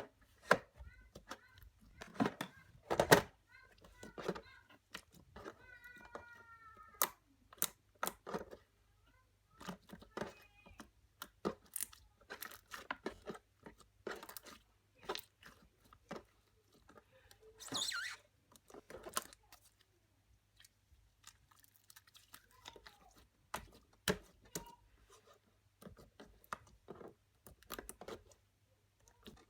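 Glitter slime being squished and pressed by hand, making irregular wet clicks and crackly pops.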